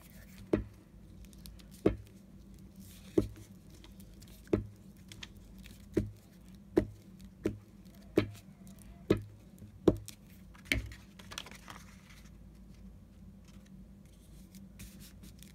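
A run of about eleven sharp taps, roughly one a second, as paper pieces and tools are worked on a craft table, followed by faint rustling for the last few seconds.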